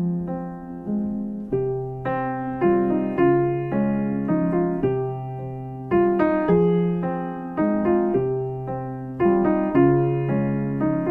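Background music: a soft piano playing slow chords and a melody, each note struck and left to ring.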